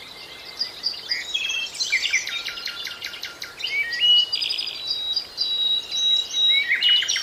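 Birds chirping and trilling: many quick, high, overlapping notes, with a held whistle-like note about five to six seconds in.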